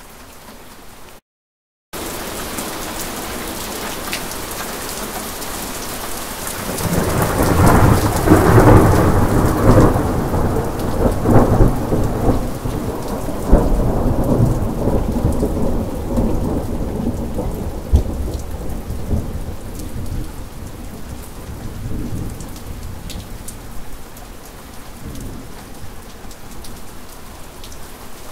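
Steady rain with a long peal of thunder that builds about six seconds in, rumbles and crackles loudly for around ten seconds, then slowly dies away under the rain. The sound cuts out to silence briefly about a second in.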